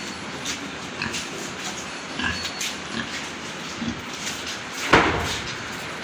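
Yorkshire pigs grunting as they move and nose about a concrete pen, with one louder, sudden sound about five seconds in.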